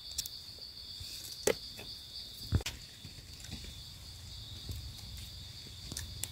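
Insects trilling steadily at a high pitch, with scattered light clicks and rustles and two louder sharp knocks about one and a half and two and a half seconds in.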